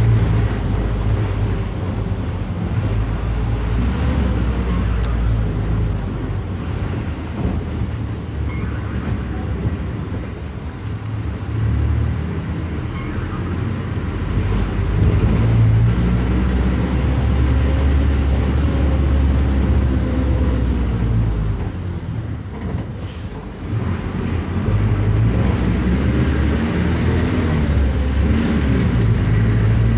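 Mercedes-Benz OF 1519 bus's diesel engine running on the move, its pitch climbing and dropping several times as it accelerates and shifts through the gears. About three-quarters through it eases off, with a brief high squeal and a short burst of air, like the bus's air brakes, before pulling away again.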